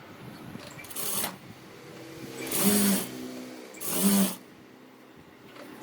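Sewing machine stitching in three short runs, about a second in, midway and just after four seconds, each run rising and falling in pitch.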